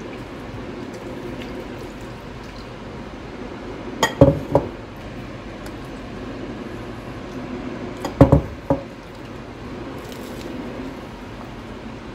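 Gram-flour pakora batter being mixed by hand in a plastic bowl as water is poured in from a jug, with wet squishing and a few sharp knocks and clinks of the jug against the bowl in two short clusters, about 4 and 8 seconds in. A steady background hum runs underneath.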